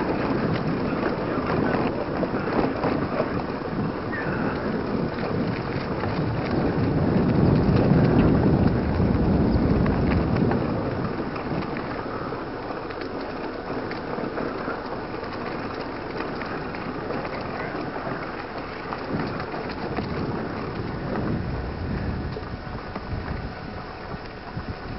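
Wind buffeting a mountain bike rider's camera microphone, mixed with the rattle and crunch of the bike rolling over a rough dirt trail. Loudest about seven to ten seconds in, easing after that.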